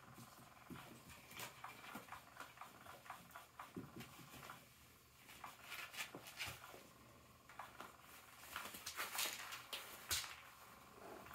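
Two kittens wrestling and pawing on a carpeted floor and a cat toy's fabric cover: faint, irregular pattering, scratching and rustling, loudest near the end.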